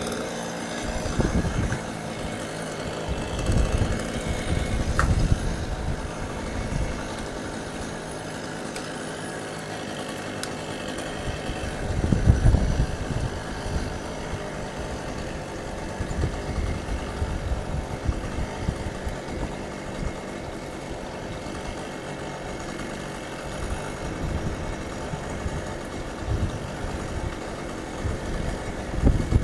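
An engine idling steadily, with irregular low rumbles that are loudest about twelve seconds in.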